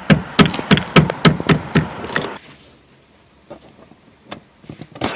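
Rapid run of sharp plastic clicks and knocks as a car headliner and its trim clips are pulled loose, about four a second for the first two seconds, then a few softer scattered clicks.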